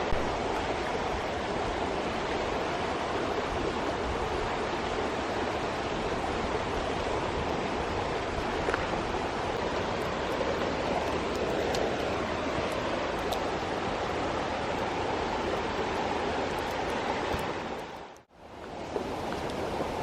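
Mountain stream rushing steadily over rocks, a constant watery noise; it fades out briefly near the end and comes straight back.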